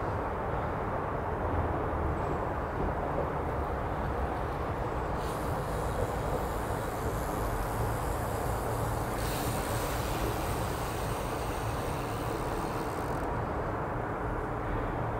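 Steady low outdoor background rumble, with a hiss added in the upper range from about five to thirteen seconds in; no calls from the eagles.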